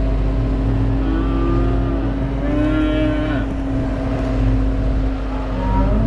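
Young cattle mooing, two or three calls, the loudest about halfway through, over a steady engine drone.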